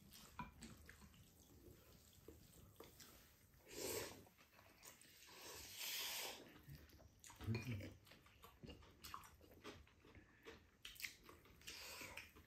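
Two people eating noodles: quiet chewing and light clicks of chopsticks against the bowls, with a few slurps of noodles, the longest about six seconds in.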